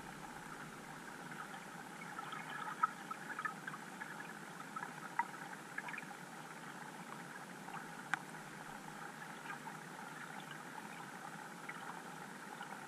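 Underwater ambience picked up by a GoPro in its waterproof housing: a steady muffled hiss with scattered faint clicks and crackles, and a few sharper single clicks about three, five and eight seconds in.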